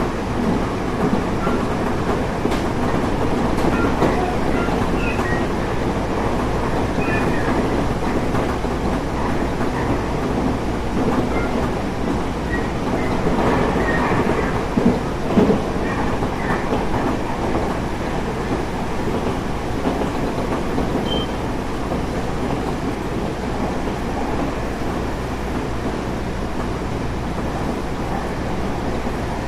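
Tobu 30000 series electric train running at speed, heard from inside the car: a steady rumble of wheels on rail with clickety-clack, and a couple of brief louder knocks about halfway through.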